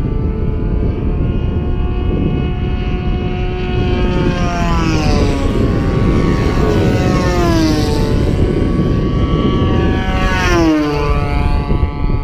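Large-scale radio-control model airplane engines and propellers running at speed, with three passes about 5, 7.5 and 10.7 seconds in where the pitch drops sharply as a plane flies by.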